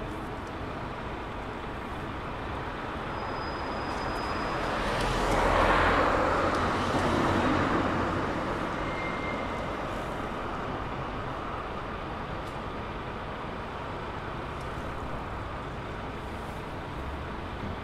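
A road vehicle drives past on a city street, its tyre and engine noise rising to the loudest point about six seconds in and then fading away over a steady low traffic hum.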